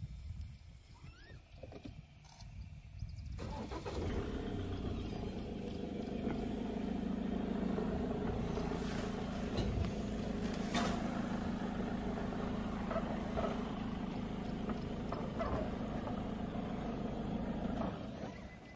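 A vehicle engine comes in about three seconds in and runs steadily, then dies away near the end, with a couple of sharp clicks partway through.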